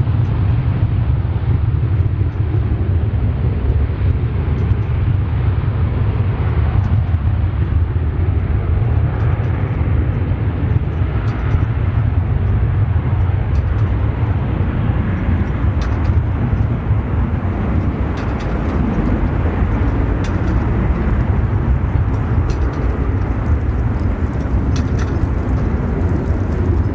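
Jet airliner engines heard as a steady, loud low rumble that barely changes.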